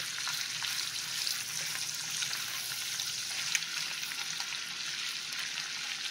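Chipped dried beef frying in melted butter in a cast iron skillet: a steady crackling sizzle, with the soft sounds of a spatula stirring it through the pan.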